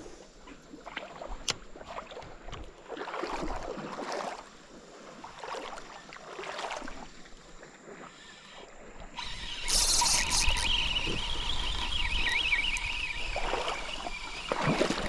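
Water sloshing and splashing against a paddle board in uneven swells while a bass is handled. About nine seconds in, a louder hiss with a wavering buzz starts and lasts about five seconds.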